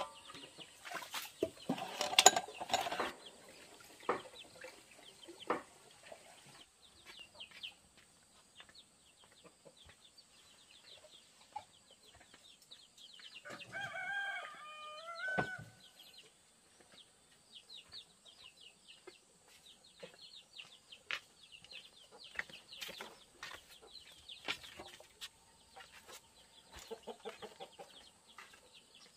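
Chickens clucking, with a rooster crowing once for about two seconds near the middle. Scattered sharp knocks and rustles, loudest in the first few seconds.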